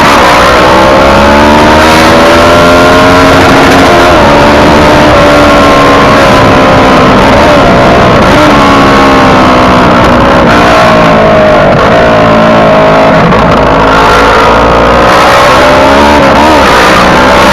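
Motorcycle engine running on the move, its pitch rising and falling several times as it speeds up, shifts and eases off, over a steady rushing wind and road noise. Very loud throughout.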